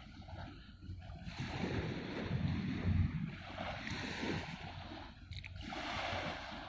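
Small waves washing onto the shore, swelling and fading, with wind rumbling on the microphone.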